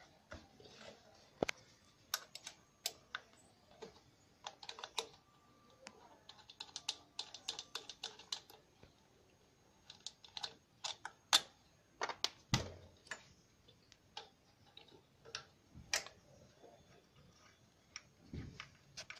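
Irregular light clicks and taps of hands and small metal parts and fittings being handled while working the carburettor loose on a Hero Splendor motorcycle, with a duller knock about twelve seconds in.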